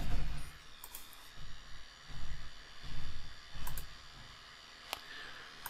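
Computer mouse clicking: a few sharp, separate clicks, with soft low thumps in between.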